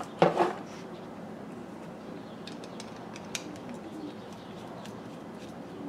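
Hands handling an electrical plug and its wired cord: a brief knock about a quarter second in, then scattered faint, sharp clicks around the middle.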